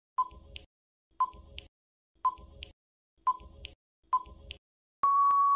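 Quiz countdown-timer sound effect: five short ticks, one a second, each with a brief beep. A long steady beep starts near the end, signalling that time is up.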